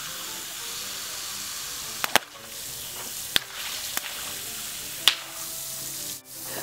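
Water hissing as it sprays from the open fill tubes of a Bunch O Balloons water-balloon filler on a garden hose. Several sharp pops of water balloons bursting, a double pop about two seconds in and more at intervals after.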